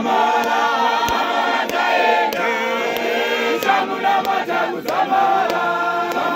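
Church congregation singing together without instruments, many loud close male voices carrying the melody at once.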